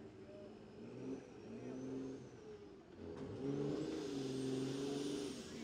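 Competition pulling truck's engine revving hard under load, rising in pitch in two surges; the second, from about three seconds in, is louder and held high.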